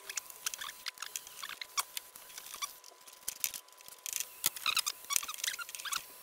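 Gloved hands working the throttle body's linkage, hoses and plastic clips: an uneven run of small clicks, rattles and squeaks, with a short lull about three seconds in.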